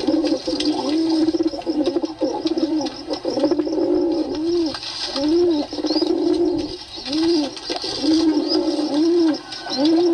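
Pigeons cooing over and over: low notes that rise and fall, about one a second, with rolling, trilled coos between them.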